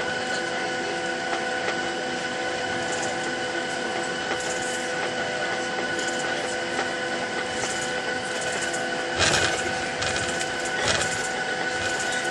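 Cabin noise of a Boeing 737-900ER taxiing, heard from a window seat: a steady whine from its CFM56 jet engines at idle over a constant hiss, with two brief knocks and rattles near the end.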